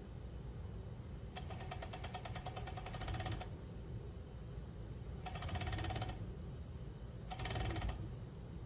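Industrial sewing machine stitching a jacket side seam in three runs of fast, even stitching: a longer run of about two seconds, then two short ones.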